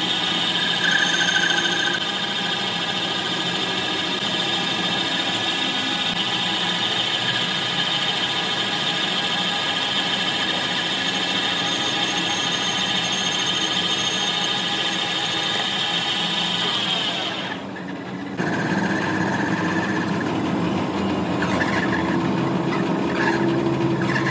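Metal lathe running with a steady high-pitched squeal. About 17 seconds in the pitch falls and the sound briefly cuts out as the machine winds down, then a lower machining noise starts up again.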